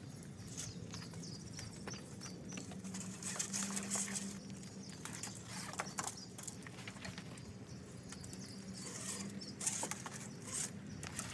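Hands working wiring along a truck's frame: irregular clicks and rustles, with denser runs of rasping clicks about a third of the way in and near the end, as plastic zip ties are pulled tight. A steady low hum runs underneath.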